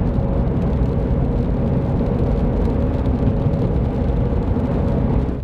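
Steady drive noise inside a vehicle's cabin at highway speed: a low engine and tyre drone on wet pavement.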